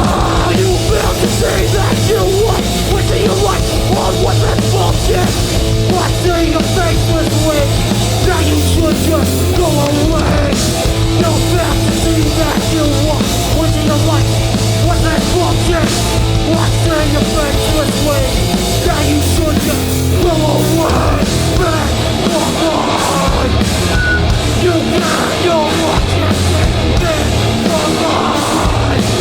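Hardcore punk band playing live and loud: distorted guitars, bass and drums in an instrumental stretch of the song.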